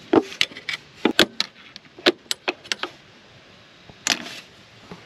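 Metal hand tools clicking and clinking: needle-nose pliers being handled and worked onto a spring hose clamp on the throttle body. A quick, uneven run of about a dozen sharp clicks comes over the first three seconds, then a short scuffing noise about four seconds in.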